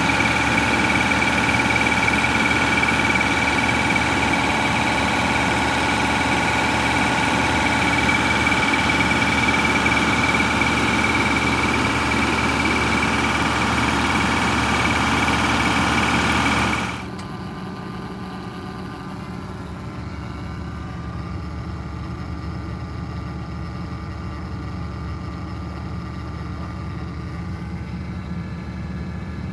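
Blue Bird Wanderlodge bus engine idling, running on its freshly repaired water pump. It is heard close up in the engine bay with a steady high whine over the running. About 17 seconds in it drops suddenly to a quieter, duller idle as heard from the cab.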